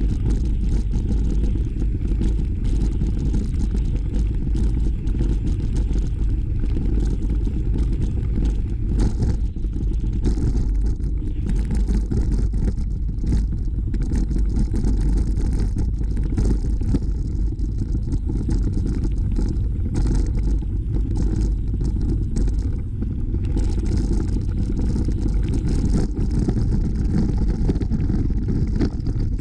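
Steady low rumble of wind buffeting the microphone of a camera riding along on a bicycle, with scattered clicks and rattles from the bike rolling over a gravel trail.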